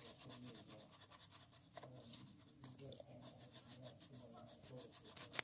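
Faint, rapid scratching of a pencil shading back and forth on paper, with one short click near the end.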